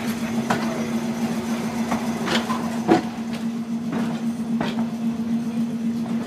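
Streetcar 2894 rolling slowly with a steady hum and its wheels clicking and knocking over the track at uneven intervals. The loudest knock comes a little under three seconds in.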